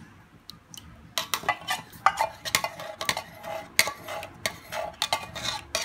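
A metal spoon scraping and clinking against the inside of an opened tin of condensed milk, scraping out the last of it. It is a rapid run of sharp metallic clinks, each with a short ring, starting about a second in.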